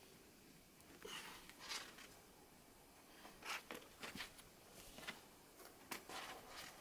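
Faint, irregular short scuffs and rustles, about half a dozen, typical of a climber's shoes and hands moving on a boulder's rock.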